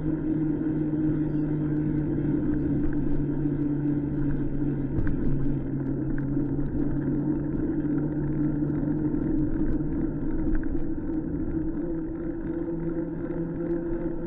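A motor running steadily, an even hum over a low rumble, with a slight change in the lower hum about five seconds in.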